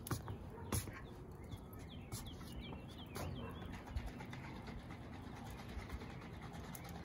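Backyard birds chirping, with cooing, over a steady low background hiss. A few sharp clicks come in the first three seconds.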